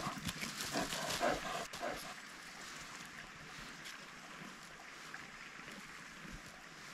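Bare hands scratching and scraping through loose soil and fine roots while digging out a truffle hole, irregular for about two seconds. It then fades to a faint steady hiss.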